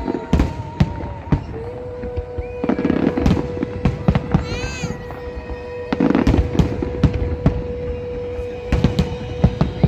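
Fireworks going off in a rapid series of bangs and crackles, heavier volleys about three and six seconds in, with music playing alongside, one long note held through most of it.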